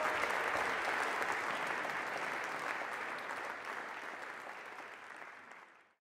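Audience applauding, many hands clapping together, slowly fading away and cutting to silence near the end.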